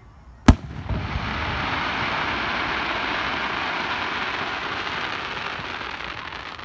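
Aerial firework shell bursting once with a loud bang, followed by a steady hiss from its burning stars as they fall. The hiss lasts about five seconds and fades near the end.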